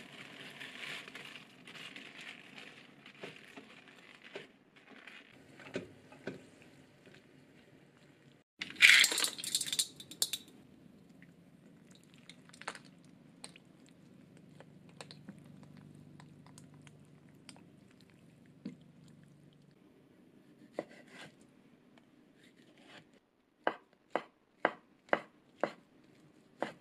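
Spinach leaves rustling as they are pushed with wooden chopsticks into a pot of boiling water. About nine seconds in, a loud rush of splashing water follows. Near the end, a kitchen knife chops tube-shaped fish cake (chikuwa) on a wooden cutting board in about seven even strokes.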